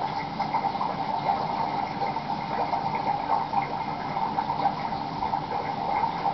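Steady bubbling water, the bubble sound of an aquarium screensaver playing on a computer.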